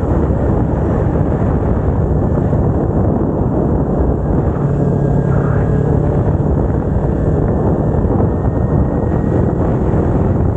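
Kawasaki Ninja 250R's parallel-twin engine running at a steady cruise on the move, mixed with a constant rush of wind over the microphone.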